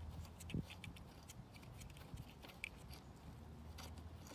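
Faint scattered clicks and taps of a crescent wrench and the kill switch's nut as the old kill switch is unscrewed from an outboard motor's cowling, with one louder knock about half a second in.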